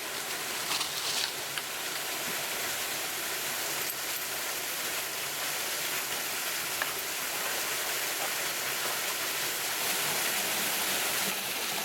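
Waterfall's falling water rushing in an even, steady hiss.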